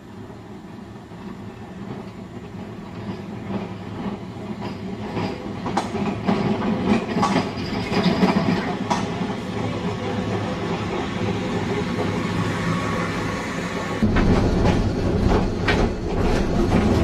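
Blackpool electric tram running on its rails, growing steadily louder as it comes closer, with a steady low hum and its wheels clacking over the rail joints. The low rumble gets suddenly louder near the end.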